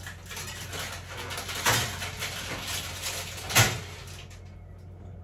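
A cake tin being put into a kitchen oven: a knock about a second and a half in and a louder knock about three and a half seconds in, over a low steady hum.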